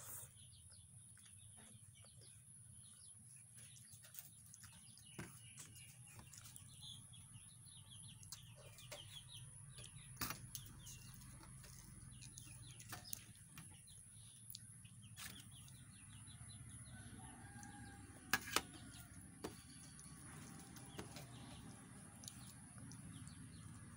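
Faint eating sounds: fingers mixing rice and dal on a steel plate, and chewing. There are scattered small clicks and two sharper clicks about 18 seconds in, over a steady low hum.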